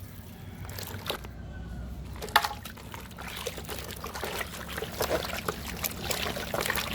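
Water pouring and splashing over raw rooster pieces as they are rinsed after a lime-and-flour wash, with irregular small knocks and one sharp clack a little over two seconds in.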